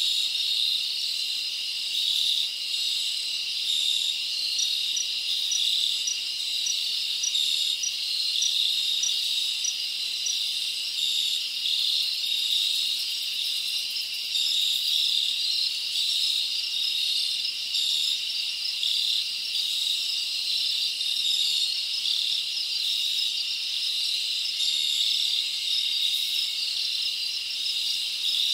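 Dense, steady chorus of chirping insects, with a run of short high chirps at about two a second from about four to ten seconds in.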